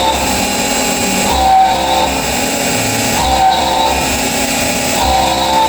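CNC milling machine's end mill cutting aluminium on a high-speed dynamic toolpath. A steady spindle whine runs under it, and the cutting sound swells in a repeating cycle about every two seconds as the tool sweeps through each pass.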